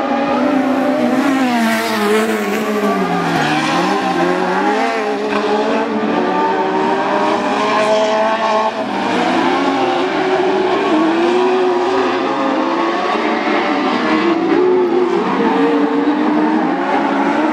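Several Buggy 1600 autocross buggies racing on a dirt track, their engines revving up and down through gear changes. Two or more engine notes overlap as the cars pass.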